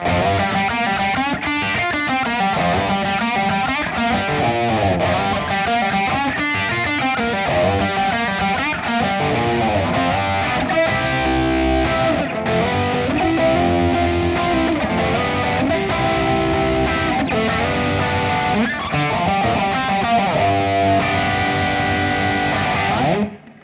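Distorted electric guitar playing over a band backing with drums, cutting off abruptly near the end.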